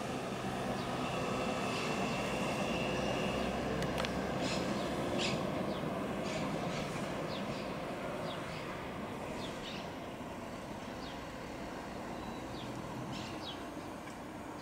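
Jet noise of an Airbus A350-900 with Rolls-Royce Trent XWB engines passing overhead on landing approach. It is a steady rumble that is loudest about four to five seconds in and then slowly fades. Short bird chirps are scattered through it.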